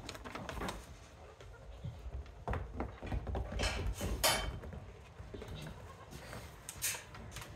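Goat kids' hooves tapping and scuffling on wooden barn floorboards as they play, with scattered irregular knocks and a few sharper clicks about halfway through.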